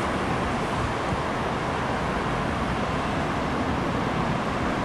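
TEP70 diesel locomotive running as it pulls slowly away, its engine giving a steady, even noise.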